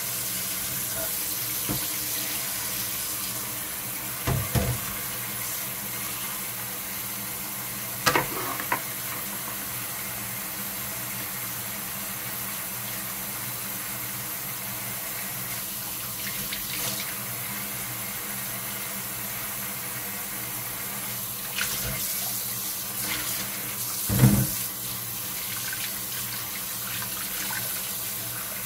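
Kitchen faucet running steadily into a stainless steel sink and a glass bowl, with a few brief splashes as wheat-gluten dough is squeezed in the water to wash out its starch; the loudest splash comes near the end.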